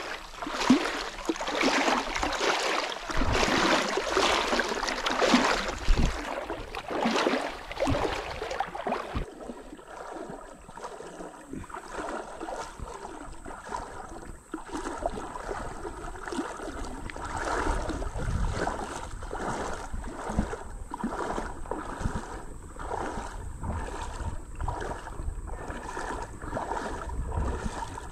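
Water splashing and rushing close by as a canoe moves through a shallow river riffle. It is loudest for the first third, then quieter and duller.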